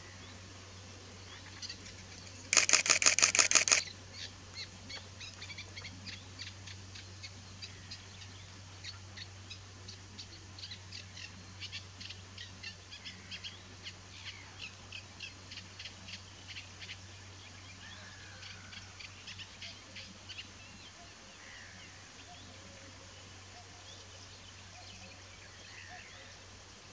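A camera shutter firing in a rapid burst of about a dozen clicks, a little over a second long, followed by small birds chirping in quick repeated notes, over a steady low hum.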